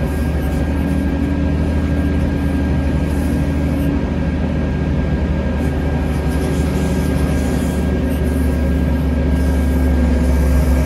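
Steady low machinery drone with a faint high steady whine, heard close to a Boeing 787-10's nose gear while a towbar tug pushes it back. It grows slightly louder near the end.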